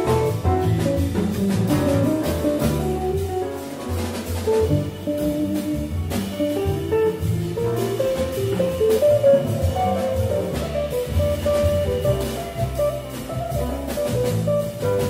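A jazz quartet of piano, saxophone, double bass and drum kit playing live, with a moving melodic line over the bass and steady cymbal strokes from the drums.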